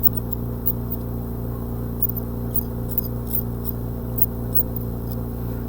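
Faint, light clicks and scrapes of a metal hand carving instrument taking a high spot down on a set amalgam filling in a plastic typodont tooth, over a steady low hum.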